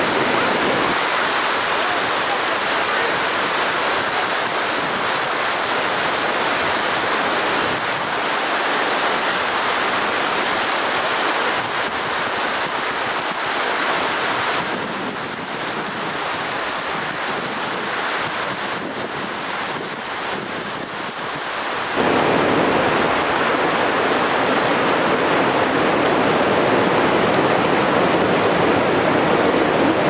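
Fast mountain river rushing over rocks: a steady, even rush of water. It dips slightly about halfway through, then comes back louder and fuller about 22 seconds in.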